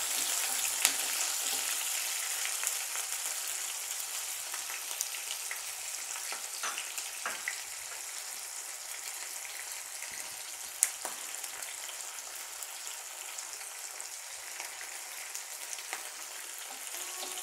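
Chopped onions sizzling steadily as they fry in hot oil in a kadai, with a spatula stirring them at the start and two sharp clicks, one about a second in and one about eleven seconds in.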